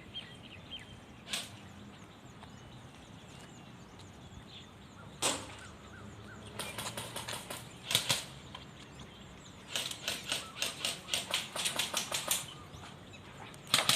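Airsoft BB guns firing: single sharp cracks about a second in and about five seconds in, a short cluster a couple of seconds later, then a rapid string of shots near the end.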